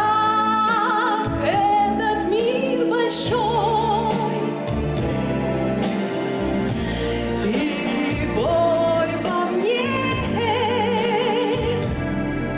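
A woman singing into a microphone over recorded backing music, holding long notes with a wide vibrato and sliding up into several of them.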